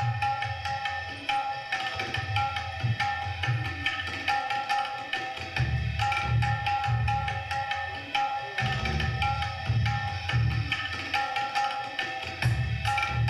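Music for the dance: a drum rhythm of deep low strokes in repeating clusters under a steady held melody.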